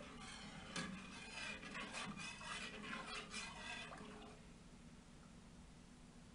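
Liquid being stirred: swishing and scraping with a few sharp knocks, stopping about four seconds in.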